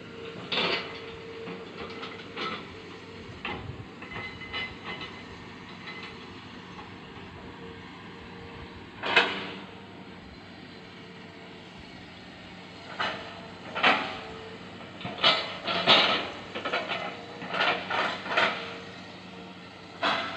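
Hitachi ZX200 excavator running with a steady engine hum, broken by short, sharp noisy bursts: a few early, a loud one about nine seconds in, and a rapid cluster from about thirteen to nineteen seconds.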